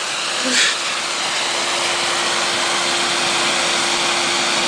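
Vacuum cleaner running steadily while sucking up loose cassette tape, with a brief louder burst about half a second in, after which a steady hum holds.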